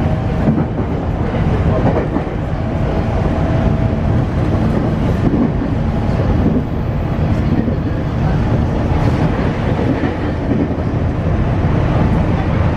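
JR West 225 series 100-subset electric train, heard from inside the passenger car, running at speed: a steady rumble of wheels on rails and running gear, with faint steady tones from the Hitachi IGBT inverter traction equipment.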